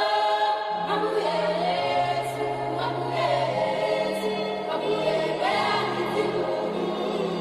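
Background music: a choir singing sustained phrases over held low bass notes.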